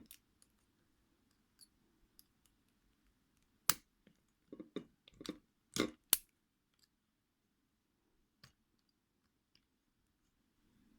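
Scattered small clicks and taps of hand tools working at the rear retaining clip of an ASSA 600 lock cylinder, with a burst of sharper clicks about four to six seconds in.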